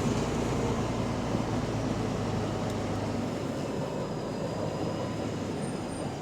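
Double-decker bus engine running under way, a steady low drone heard from on board, from a bus with an exhaust leak. A faint high whine sliding slowly down in pitch comes in about halfway through.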